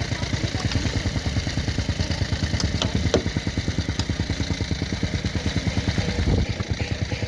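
Heavy construction machine's engine running with a fast, even pulsing beat, with a few sharp clicks about three seconds in.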